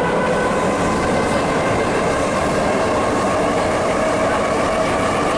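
Prague metro train heard from inside the carriage while running between stations: a steady, loud rumble of wheels and running gear, with a whine that slowly rises in pitch.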